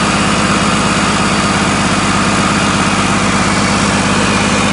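2014 Volvo D13 12.8-litre inline-six diesel truck engine (425 hp) idling steadily with an even, rapid firing pulse.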